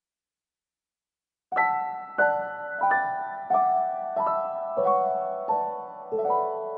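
Silent for about a second and a half, then background music starts: a slow piano melody of single notes struck about every two-thirds of a second, each one ringing and fading, the line drifting lower.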